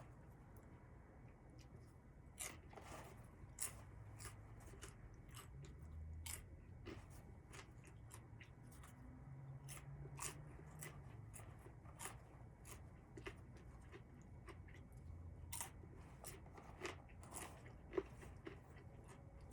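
Near silence with faint, irregular clicks and crackles, a few every second, over a low hum.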